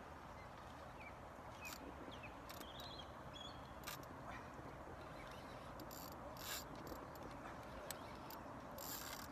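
Spinning reel clicking in short, irregular bursts while a hooked fish pulls against the bent rod, over a steady low hiss.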